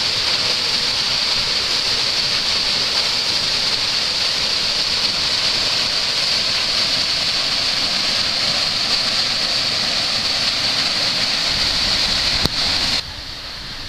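Steady rushing of a waterfall plunging into a rock pool. Near the end there is a single click, then the level drops suddenly.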